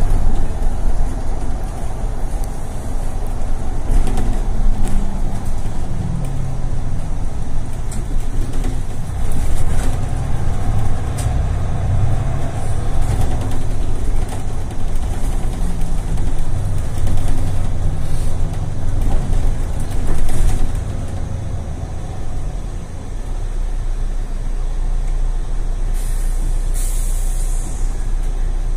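Interior of a Mercedes Citaro city bus on the move: the diesel engine and drivetrain drone steadily, with the engine pitch shifting in the first few seconds. The sound eases after about twenty seconds as the bus slows, and near the end the air brakes give a short, sharp hiss as it comes to a stop.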